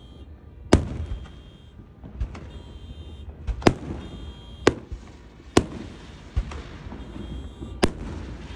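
Fireworks going off in a string of sharp bangs of varying loudness, about one a second, the loudest about a second in and two close together near the middle, over a steady low rumble.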